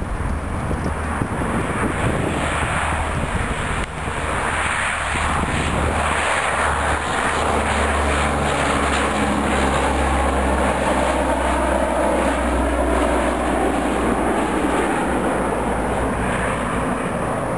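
C-130 Hercules' four turboprop engines at takeoff power as the aircraft rolls, lifts off and climbs out: a loud, steady drone of engines and propellers with a low hum, growing louder from about four seconds in.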